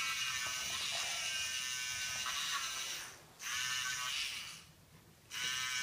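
The small battery-powered toy drill of a Play-Doh Doctor Drill 'n Fill set whirring as it bores a hole into a play-dough tooth. It stops briefly about three seconds in and again for under a second near the end, then starts up again.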